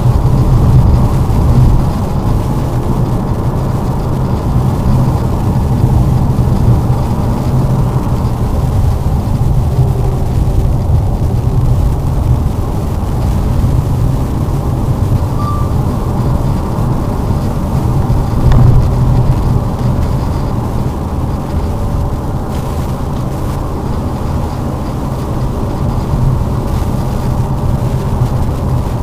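Lada Vesta driving on a snowy road: a steady low rumble of engine and tyre noise.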